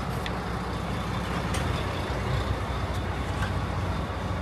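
Heavy truck engine running steadily, a low even rumble, with a couple of faint clicks.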